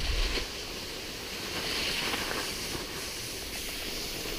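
Steady hiss of skis sliding over snow mixed with wind rushing over the microphone, a little louder about two seconds in.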